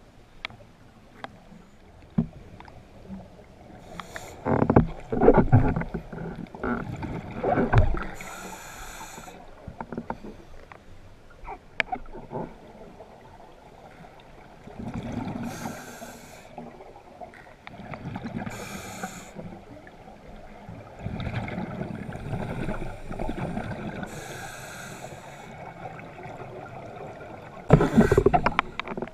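A scuba diver breathing through a regulator underwater: bubbly rumbling surges and hissing bursts of exhaled bubbles come every few seconds, with a few sharp clicks between them.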